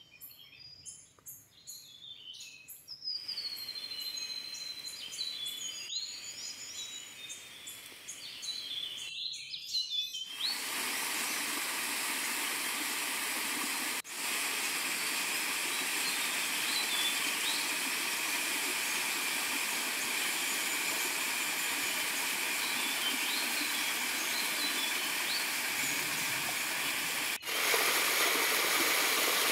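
Birds chirping and calling with short whistled notes for about the first ten seconds, then the steady rush of a small waterfall splashing down over rocks for the rest.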